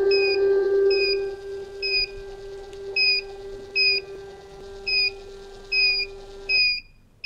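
Comen ECG machine's thermal printer motor whining steadily as the tracing paper feeds out, cutting off about six and a half seconds in. Over it the machine gives a short high beep about once a second, its heart-rate beep with each detected heartbeat.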